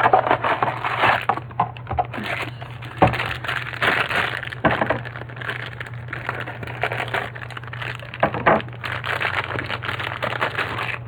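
A small cardboard mystery-mini box being torn open and its packaging handled: continuous crinkling and crackling with a few sharp snaps.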